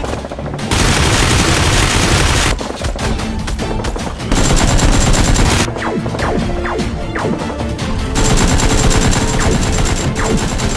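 Automatic gunfire sound effects in several long bursts of rapid shots, over background music.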